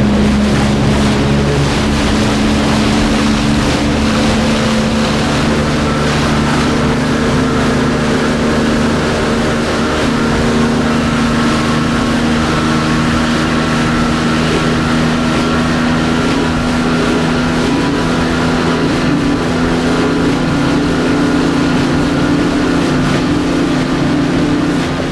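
Speedboat engine running at a steady speed, its drone holding one pitch, over a constant rushing noise.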